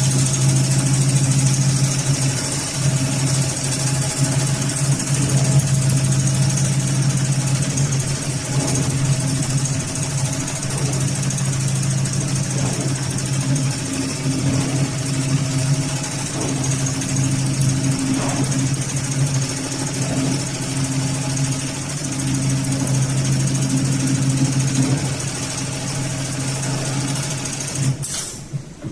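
Heavy-duty automatic pattern sewing machine for big-bag lifting loops running steadily, a loud even mechanical hum that stops about a second before the end.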